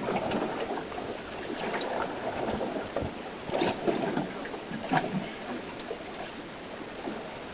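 Water slapping and lapping against a small boat's hull, with a few sharper, louder slaps about three and a half and five seconds in.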